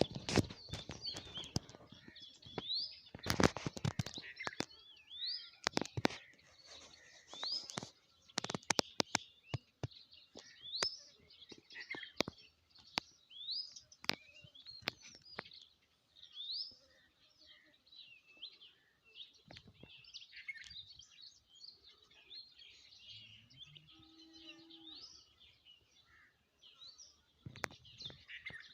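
Small birds chirping, one repeating a short rising call every second or two over other twittering. Sharp clicks and taps come often through the first half, thinning out after that.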